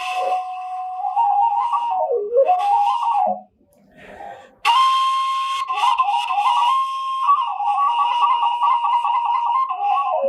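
Washint, the Ethiopian end-blown bamboo flute, playing a solo melody of sliding notes. There is a short break about three and a half seconds in, then a held note that breaks into fast trilled ornaments.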